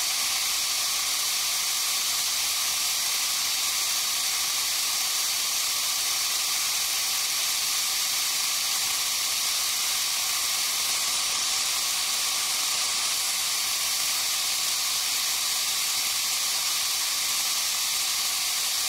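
Steady, even hiss of cutting coolant spraying over the tool and workpiece inside a Hwacheon Hi-TECH 230AL YMC CNC turning center's enclosure.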